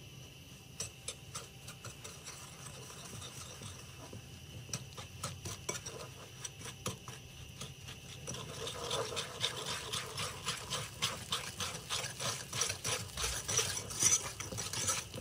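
Wire balloon whisk beating egg yolks, sugar and starch for pastry cream in a bowl. A few scattered taps at first, then from about halfway a fast, steady clicking and scraping of the wires against the bowl that grows louder.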